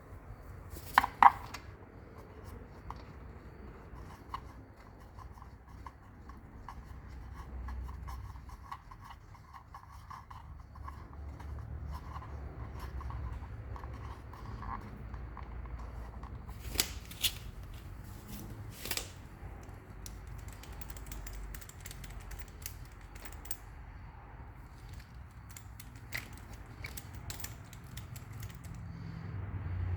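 Metal hand tools working on wheel lug bolts: a loud pair of sharp clicks about a second in, then a long run of light ticking and scattered metal clinks, with a low rumble underneath.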